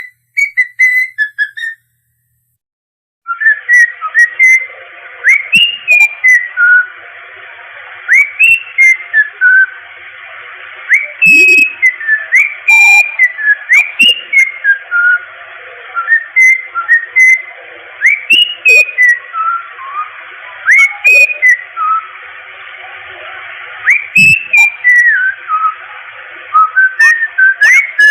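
Cockatiel whistling a learned tune: runs of short whistled notes, many swooping up sharply at the start, with a brief pause about two seconds in. A steady hiss lies under the whistling after the pause, and a few sharp clicks come between phrases.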